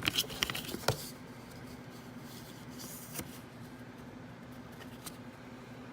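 Paper and handling noises: a cluster of clicks and rustles in the first second, then quiet room tone with a faint steady hum and a couple of soft clicks.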